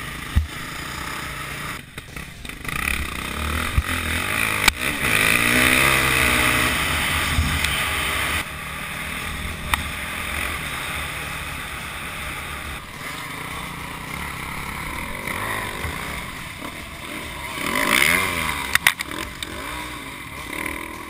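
Husqvarna enduro motorcycle heard from a helmet camera, its engine revving up and falling back, with the pitch rising twice, and wind rushing over the microphone. A few sharp knocks are scattered through the ride.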